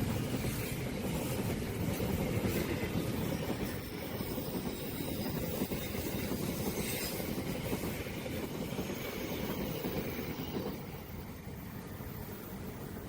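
A long train passing, its wheels rumbling steadily on the rails, the sound slowly fading and dropping away about ten and a half seconds in.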